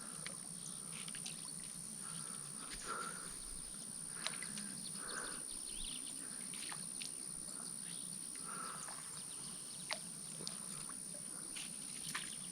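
Quiet outdoor pond-side ambience: a steady high-pitched whine throughout, with faint short animal calls every few seconds and a few light clicks.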